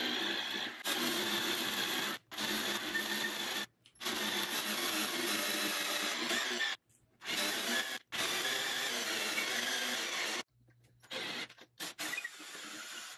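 Cordless drill turning a converted brace auger bit, boring slowly down into a wood block. The drill runs in several long stretches with brief stops between them, then in a few short pulses near the end.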